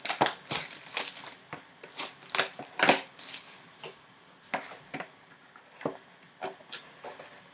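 Cellophane shrink-wrap being slit and torn off a cardboard trading-card box, with handling of the box: irregular crackles and scratches, busiest over the first three seconds and sparser after.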